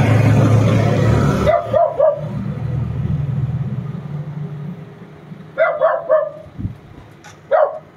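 A vehicle passes on the road, loudest at the start and fading away within the first two seconds. A dog barks in quick runs of three short barks, about a second and a half in and again near six seconds, with one more bark near the end.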